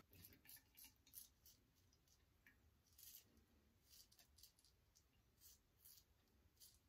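Safety razor blade scraping through lather and stubble on the chin in a series of short, faint strokes.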